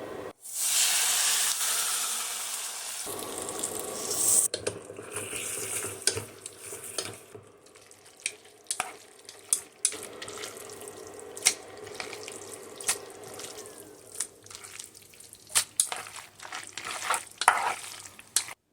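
Hot oil poured over the seasonings on a bowl of noodles: a sudden loud sizzle that fades over about four seconds. Then a utensil stirs the noodles, with repeated clinks against the bowl.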